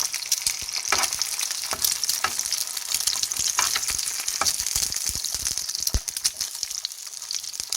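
An egg frying in oil in a pan: a steady sizzle with frequent small pops and crackles scattered through it.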